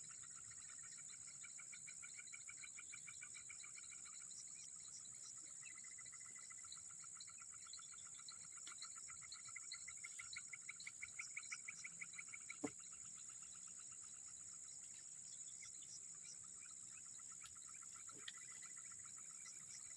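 A faint chorus of swamp insects and frogs: a steady high-pitched drone with rapid pulsing calls over it. A single sharp click comes a little past halfway.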